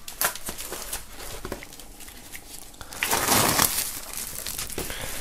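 Plastic shrink-wrap film crinkling and rustling as it is handled, with scattered light clicks and a denser burst of crinkling about three seconds in.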